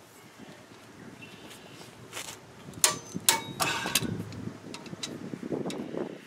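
Torque wrench and socket on a brake caliper bracket bolt: a few sharp metallic clicks and clinks with a brief ring, a couple of seconds in, then handling rustle as the wrench is worked.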